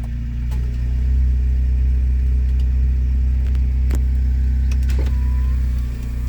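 Fiat Palio 1.2's four-cylinder petrol engine running steadily at idle, getting louder about a second in and dipping briefly near the end, with a few faint clicks.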